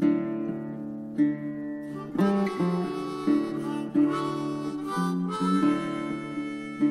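Background music: a harmonica playing held chords and changing notes over acoustic guitar.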